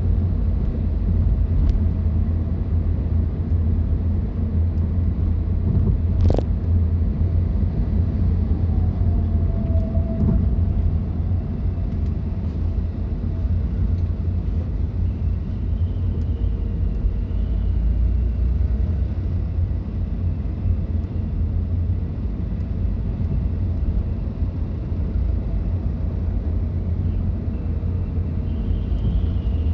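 Steady low rumble of a car driving along a road, with a single sharp click about six seconds in.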